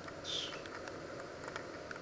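Food frying quietly in a covered pan on the hob: a steady low sizzle with a few faint crackles, and a brief louder hiss about a third of a second in.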